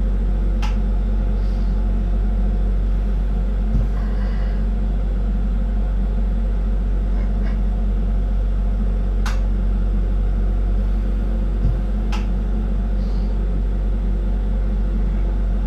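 A lampworking bench torch burning with a steady low rumble as glass rods are heated in its flame. A few faint sharp clicks sound through it, one just under a second in and two more later on.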